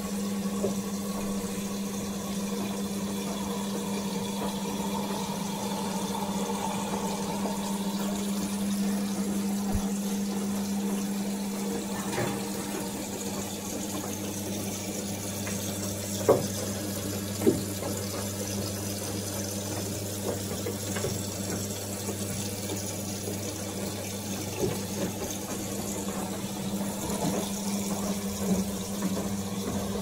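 Siemens WD14H420 washer-dryer running a wash programme: a steady hum with running water inside the machine. A second, lower hum joins about halfway through, and there are two sharp knocks shortly after it.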